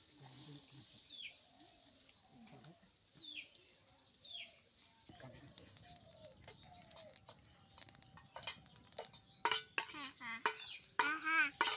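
A bird calls over and over, a short falling note about once a second, with faint voices low underneath. Later come sharp clicks, and near the end loud wavering calls.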